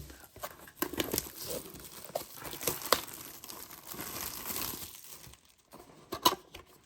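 Plastic shrink-wrap crinkling and tearing as a sealed trading-card box is unwrapped and opened, with irregular crackles and a few sharp clicks, the loudest a little after six seconds in.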